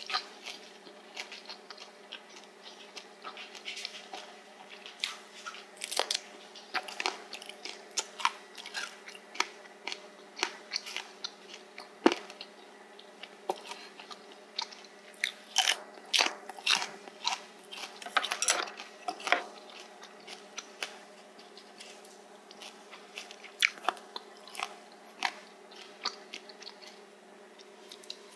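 Close-miked chewing with many sharp, irregular crunches, from eating spicy stir-fried pork cartilage (odolbyeo). A faint steady hum runs underneath.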